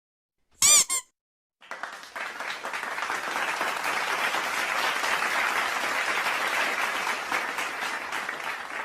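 A brief squeaky sound effect that bends in pitch, then a crowd applauding, swelling up and slowly dying away.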